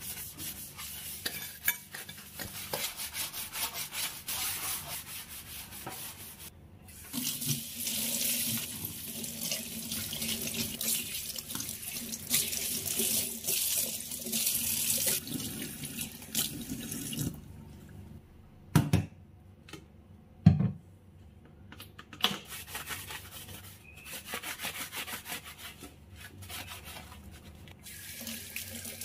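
A stiff brush scrubs a chrome tap fitting and tiled wall in quick strokes for the first few seconds. Then tap water runs and splashes into a stainless steel sink as the soap suds are rinsed off, broken in the middle by two sharp knocks about a second and a half apart, the loudest sounds, before the water runs again.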